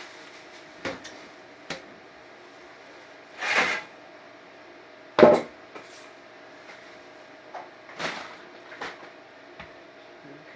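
A few separate knocks and clicks, with two short scraping rustles, from tools and parts being handled on a work surface; the loudest knock comes about five seconds in. A faint steady hum runs underneath.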